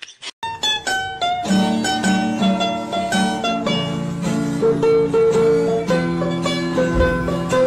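Background music: a plucked string instrument picking out quick notes over a steady accompaniment.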